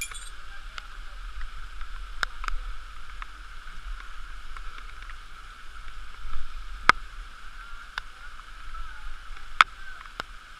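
Steady rush of water running down a rocky canyon stream, heard muffled through a waterproof GoPro housing, with a few sharp clicks scattered through it.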